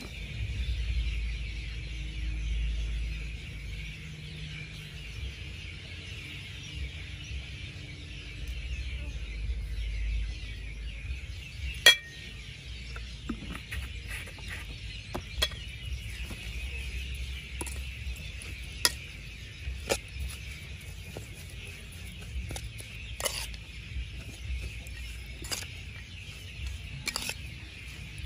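Cooking utensils clinking now and then against metal, a dozen or so sharp clinks with the loudest about twelve seconds in, over a steady hiss and a low rumble.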